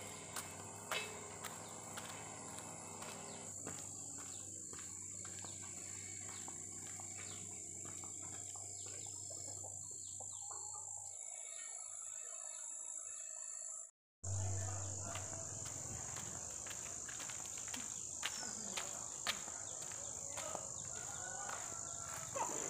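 Insects buzzing steadily with a high-pitched drone, with faint bird calls now and then; the sound cuts out for an instant about two-thirds of the way through.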